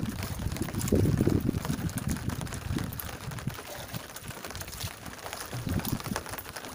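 Water sloshing and splashing around a small fishing boat at sea, full of small sharp drips and splashes, with uneven gusts of wind rumbling on the microphone.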